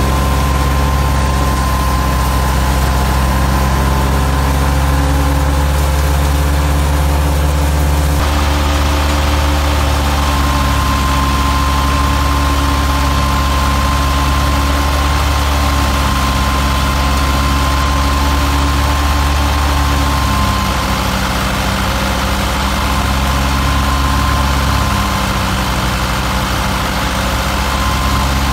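Ford 4610 tractor's three-cylinder diesel engine running steadily, driving a wheat thresher through its PTO shaft. A thin steady high-pitched whine runs over the low engine note.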